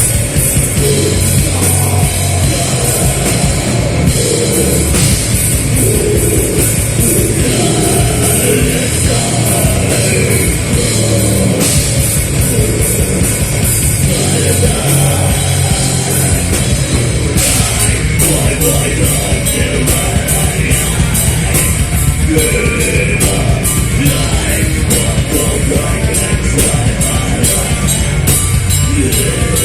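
A heavy metal band playing live, with distorted guitars, bass and a drum kit at full volume. Fast, even cymbal strikes run through the second half.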